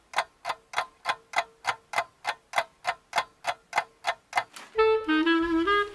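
Clock ticking fast and evenly, about three ticks a second. The ticking stops about four and a half seconds in as music with a melody begins.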